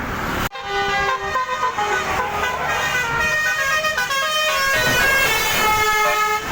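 Bus basuri (telolet) multi-trumpet horn playing a fast tune of short held notes, several pitches sounding together, starting abruptly about half a second in.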